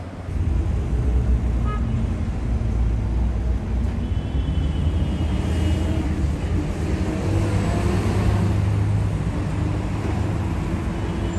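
Steady low rumble of city road traffic, with faint high thin tones twice, about four seconds in and near the end.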